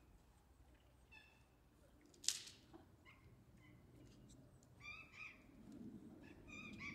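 Faint outdoor ambience with a few short bird chirps, one sharp click a little over two seconds in, and a low murmur rising near the end.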